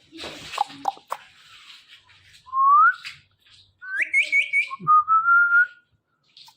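A ringneck parrot whistling: a short rising whistle, then a warbling whistle with four quick upward flicks, then a long slowly rising whistle, after some brief scratchy noises at the start.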